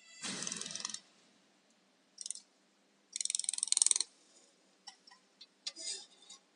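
Laser welder firing in bursts. Each burst is a crackling buzz of rapid pulses lasting up to about a second: one at the start, a short one about two seconds in, the loudest about three seconds in, and smaller snaps and clicks near the end.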